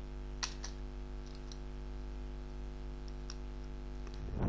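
Computer mouse clicks: two close together about half a second in, then a few fainter single clicks, over a steady electrical hum. A short soft low thump near the end.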